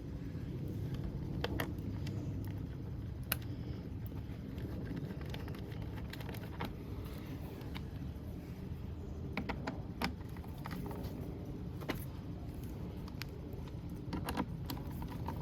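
Light clicks and small metallic clinks scattered every second or few, over a steady low background hum.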